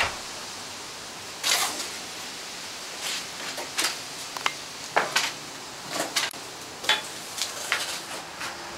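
Footsteps and scuffs on a concrete porch at an irregular pace, about one a second, over a steady hiss.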